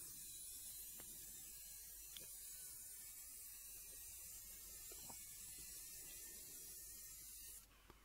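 Near silence: a faint steady hiss with a couple of faint ticks, dropping away suddenly near the end.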